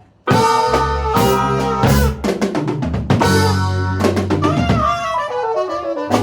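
Jazz band with drum kit, bass guitar and synthesizer keyboard playing a swinging jazz arrangement, the drums loud and busy with bass drum, snare and rimshot hits. It comes in hard after a short break about a quarter second in.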